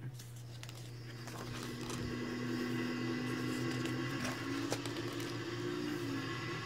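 Low, sustained drone-like music with held tones from a television soundtrack; the chord shifts a little past halfway. A few faint clicks sound over it.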